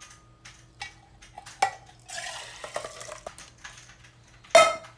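Soaked rice and water poured from a small pot into a steel canteen cup. The pot's rim clinks against the cup twice, the water splashes in for about a second, and a loud ringing metal clank comes near the end.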